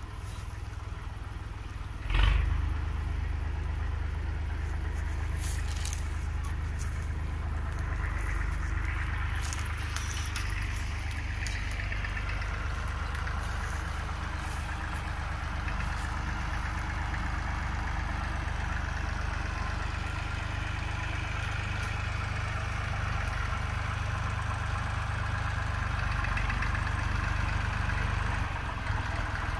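Small red tractor's engine running steadily as it pulls a two-row corn planter across tilled soil. A brief knock sounds about two seconds in, and the engine sound grows fuller from about a quarter of the way through.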